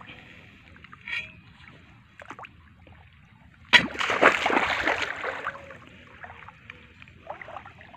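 Water splashing: a sharp knock about four seconds in, then a second or so of splashing that dies away, over quieter small knocks and trickles.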